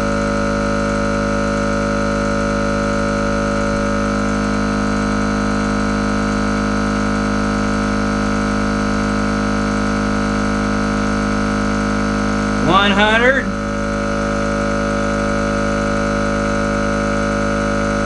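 Small battery-powered electric air compressor running steadily with a constant hum as it pumps up its air tank, building pressure toward its 100 psi pressure-switch cutoff. About thirteen seconds in, a brief rising voice-like sound rises over it.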